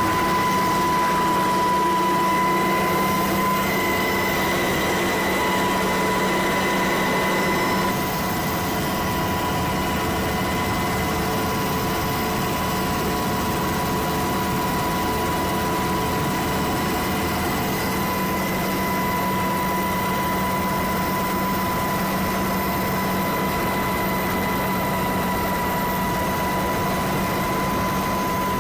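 Military helicopter in flight, heard from inside the cabin with the side door open: steady, loud turbine and rotor noise with a steady high whine over it.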